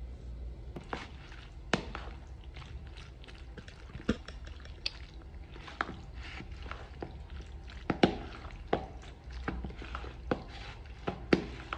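Cooked macaroni being stirred together with its ingredients in a bowl: irregular clinks and knocks of the utensil against the bowl with soft squishing, a few knocks sharper than the rest.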